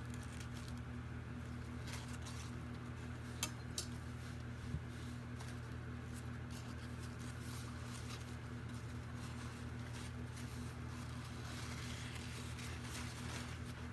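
Steady low electrical hum, with a few small sharp clicks about three to five seconds in as a shipping container is unwrapped by hand.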